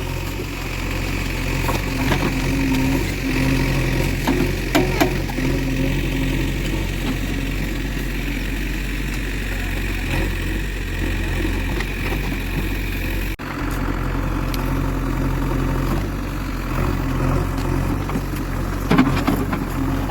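JCB 3DX backhoe loader's diesel engine running steadily at low revs, with a momentary drop-out about two-thirds of the way through.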